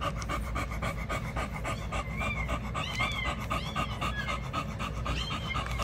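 An American bully bitch panting fast and evenly in labour, between the births of her puppies, with a few faint high squeaks in the middle and near the end.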